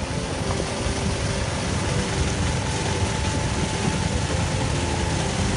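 A heavy machine's engine running steadily, with a dense low rumble of mechanical noise.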